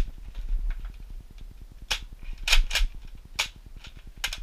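Sharp plastic clicks and clacks from a Nerf Tri-Strike blaster's mechanism being worked by hand, irregularly spaced and louder in the second half. The button meant to release the priming isn't working.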